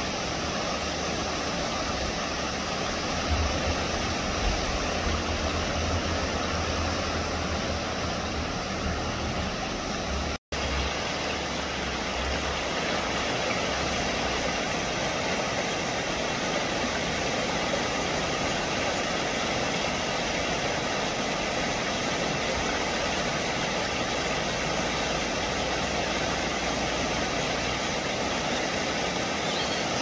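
Shallow mountain stream rushing over rocks: a steady rush of water. A low rumble sits under it for the first ten seconds or so and stops after a momentary break in the sound.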